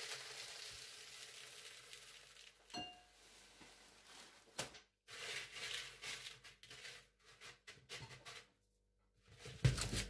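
Brown clay drainage pebbles poured from a bag into a plastic flower pot, a steady pouring hiss for the first two seconds or so. Then come a couple of clicks and scattered short rustles as the pebbles are spread by hand in the pot.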